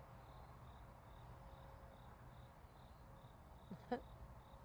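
Crickets chirping faintly in a steady rhythm, about two high chirps a second. A single short click or knock about four seconds in is the loudest sound.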